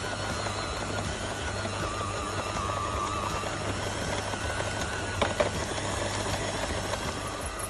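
Electric stand mixer with dough hooks running steadily as it kneads stiff bread dough: a low motor hum with a wavering higher whine. Two short sharp knocks come about five seconds in.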